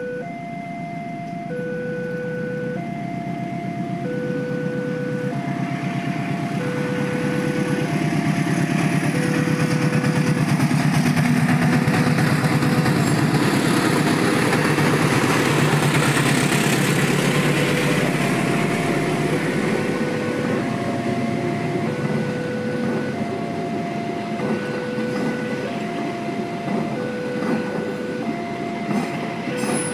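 Railway level-crossing warning alarm sounding its two-tone chime, high and low tones alternating about every three quarters of a second, while a passing train's rumble builds, is loudest about halfway through, and carries on.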